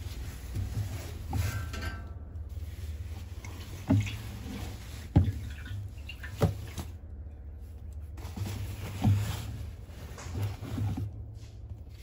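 A hand moving laundry around inside a top-loading washing machine's drum: fabric rustling, with several sharp knocks against the drum and agitator. The washer itself is not running; it has broken down.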